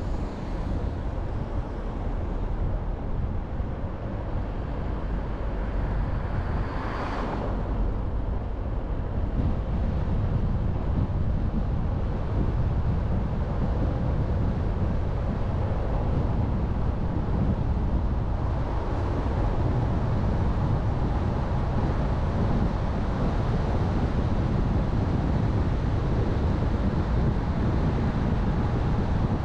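Car driving on a road: a steady low rumble of engine, tyre and wind noise, with a brief whoosh about seven seconds in.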